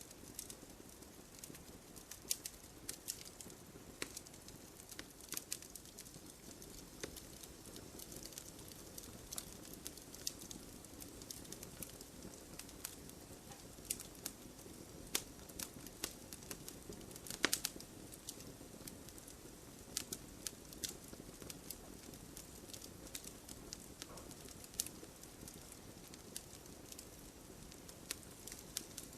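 Wood fire crackling: irregular sharp pops and snaps over a soft steady hiss, with one louder pop about halfway through.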